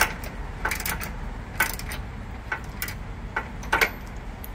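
Socket ratchet clicking in short, irregular strokes, about nine sharp clicks, as a 5/8-inch bumper bolt is backed out; the bolt is loose and turns out easily.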